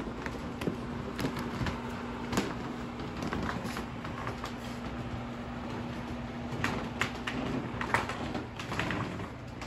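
Old wooden floorboards creaking and knocking irregularly under footsteps, over a steady low hum. The creaking is the sign of the building's age.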